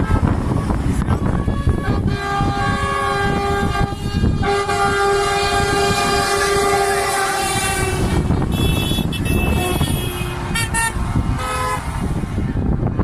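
Truck air horns blowing over a steady noisy rumble: a long blast from about two seconds in, a brief break, and a second long blast to about eight seconds, then several shorter toots near the end.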